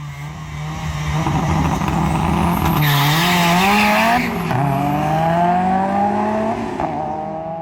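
Car engine accelerating hard, its pitch climbing and then dropping twice, about four seconds in and again near the end, as it shifts up through the gears. A burst of hiss comes about three seconds in and lasts about a second.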